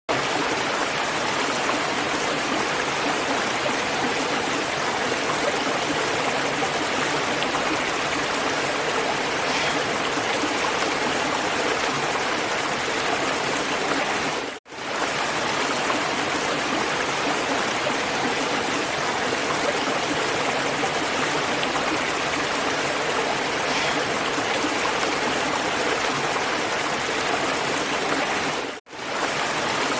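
Running water flowing steadily, an even rushing sound. It cuts out for a split second twice, about halfway through and near the end.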